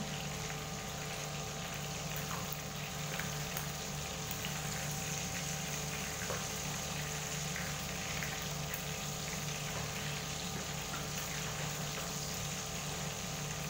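Fish frying in hot oil in a pan, a steady sizzling hiss, with a few light clicks of metal tongs against the pan as the pieces are turned. A steady low hum runs underneath.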